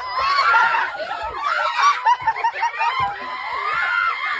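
A group of people laughing and shrieking over one another, with excited chatter mixed in.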